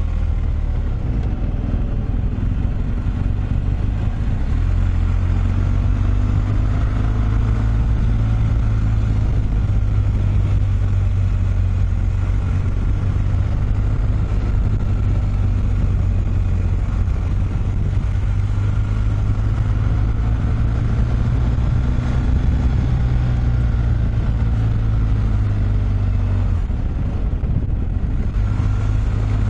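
Onboard sound of a vehicle's engine running steadily under way, a low hum with its pitch rising and falling a little. It eases off briefly about two seconds before the end.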